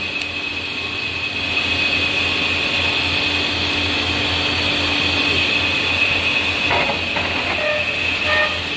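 Namkeen extruder machine running: its geared electric motor drive gives a steady hum with a constant high whine, and a brief clatter comes about seven seconds in.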